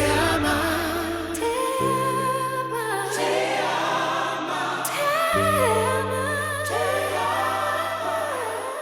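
Slow Christian worship ballad with wordless sung voices over sustained chords. The chord changes twice as the song draws to its close.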